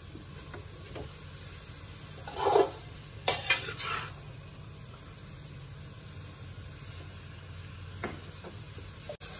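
A metal spoon stirring grated radish and spices in a metal kadai, scraping and knocking against the pan a few times, loudest between about two and four seconds in, over a faint steady sizzle of the radish frying in oil on full flame.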